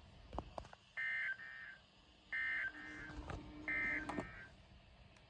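Three short bursts of EAS end-of-message data tones, the digital SAME 'NNNN' code, each a harsh buzzing warble, evenly spaced about a second and a third apart; they mark the end of the Flash Flood Warning.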